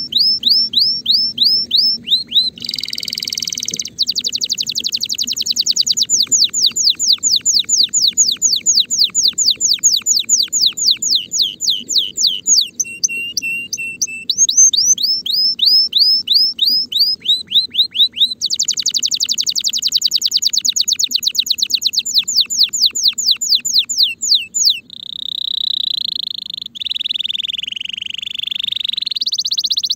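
Timbrado canary in breeding condition singing: long fast rolls of quick, repeated falling notes that change speed from phrase to phrase, a short lower trill midway, then a long held warbling note that dips and rises near the end.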